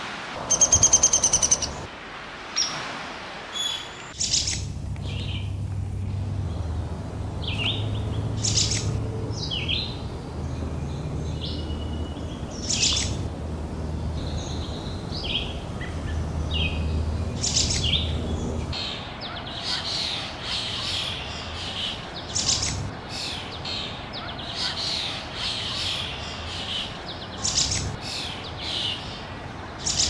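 Wild birds chirping and calling in short, high notes, with a loud run of rapid repeated calls about a second in. A low steady hum sits under the middle stretch, and the chirping grows denser and busier near the end.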